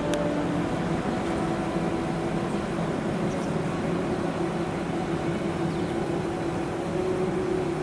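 Steady engine drone: an even, unchanging noise with a low hum and a higher steady tone above it.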